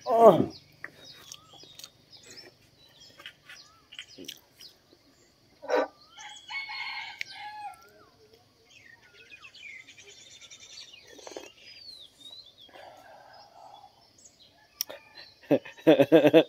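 A rooster crowing near the end, with small birds chirping on and off. Right at the start, a brief loud sound that slides down in pitch.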